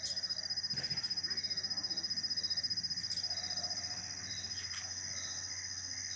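Chorus of night insects trilling steadily at a high pitch, with a fast, even pulse, and shorter notes repeating a little lower. A few faint clicks cut in.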